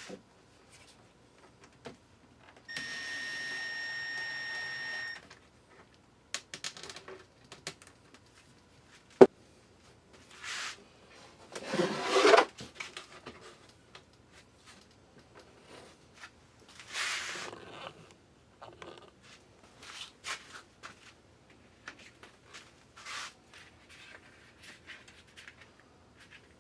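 A small power-tool motor runs steadily for about two and a half seconds. Then come scattered clicks, one sharp knock and short bursts of handling noise as parts are worked on.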